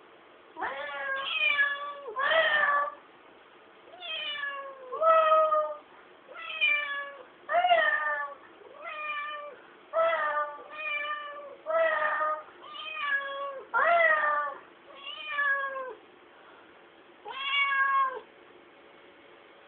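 A black-and-white domestic cat meowing again and again, one drawn-out meow roughly every second, with a short pause before the last one.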